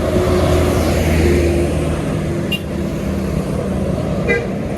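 Tour bus running on the road: a steady low engine drone over road noise, with a couple of short high-pitched blips near the end.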